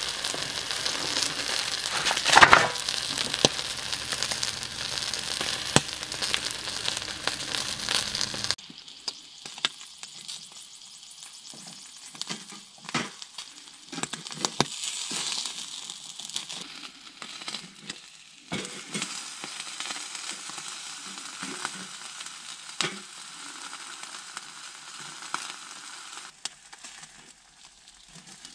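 Chicken pieces sizzling on a wire grill over glowing charcoal. About a third of the way in the sizzle drops quieter, and scattered clicks and scrapes of tongs and a knife on the metal grill come through.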